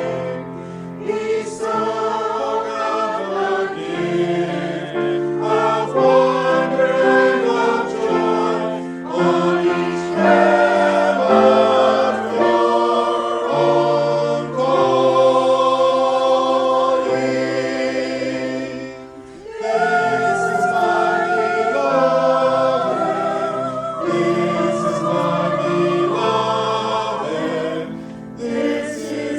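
A choir singing a hymn in several parts, phrases held with vibrato, with a short break between phrases about two thirds of the way through.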